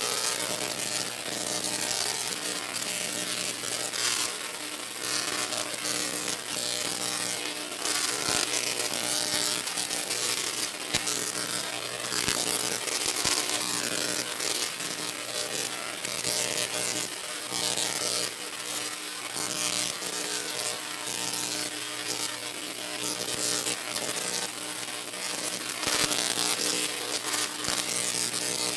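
Big Bruiser, a 26-foot, 26 kW Tesla coil, firing a long arc from its top terminal to the ground: a steady electric buzz with a dense crackle of spark discharge on top. It swells and eases slightly every few seconds.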